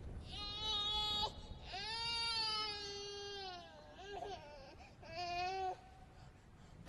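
A baby crying in four wails: a cry about a second long, a longer wail of about two seconds that drops in pitch at its end, a short wavering sob, and a last short cry.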